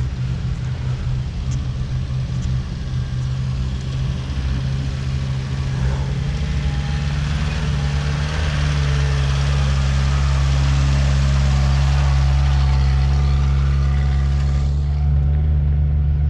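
Jeep Wrangler's engine running at low revs as it crawls up a dirt off-road trail, growing louder as it comes closer. Near the end the higher part of the sound drops away suddenly, leaving the low engine hum.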